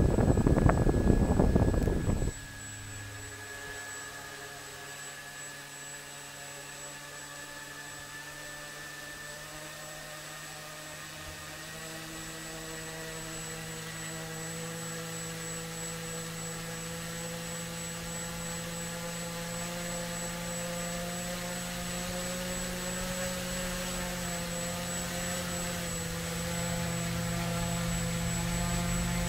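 Walkera X350 Pro quadcopter's brushless motors and propellers spinning while it sits on the ground. A loud rush of air over the first two seconds cuts off suddenly, then comes a steady whine of several tones with a thin high tone above, slowly growing louder.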